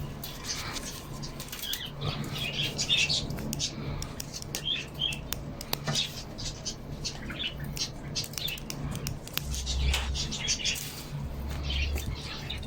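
Pigeons moving about in a loft: wing flaps, scattered clicks and scuffs, and short high chirps, over a steady low hum.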